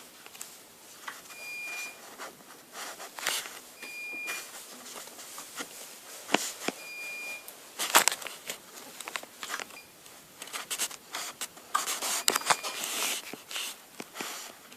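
Slime being squeezed and worked by hand, making irregular small clicks, crackling pops and scraping, with a faint short high beep repeating a few times in the background.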